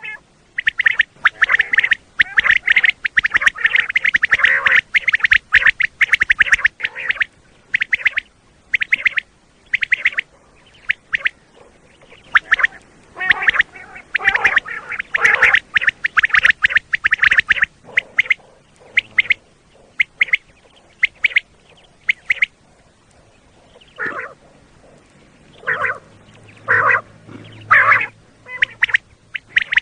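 Common quail calling over and over, short sharp notes in quick clusters: dense and overlapping for the first half, then in sparser groups of a few notes.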